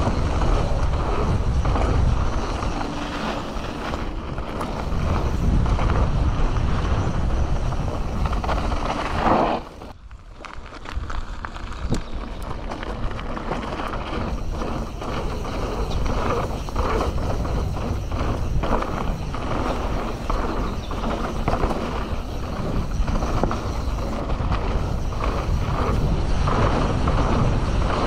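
Canyon Torque CF 9 full-suspension mountain bike riding down a dirt flow trail: tyres rolling on the dirt, the bike rattling with many short knocks, and wind rushing over the microphone. It goes quieter briefly about ten seconds in.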